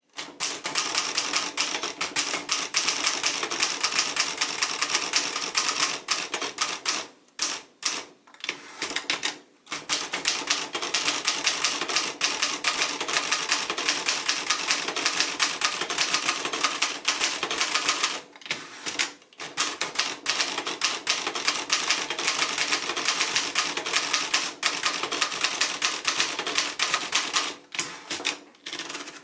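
Keys of a 1961 Hermes Rocket manual portable typewriter clacking in rapid, continuous typing, broken by a few brief pauses.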